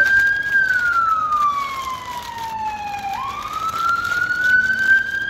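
Emergency vehicle siren in a slow wail, its pitch rising for about two seconds and falling for about two and a half, peaking twice. Faint crinkling of sandwich wrapping paper being unwrapped underneath.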